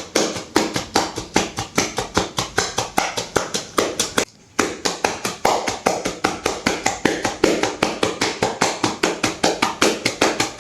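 Hands rapidly patting a patient's back in chest physiotherapy percussion: a quick, even run of slaps, about six a second, with a brief pause about four seconds in. The percussion is done to loosen phlegm from the airways.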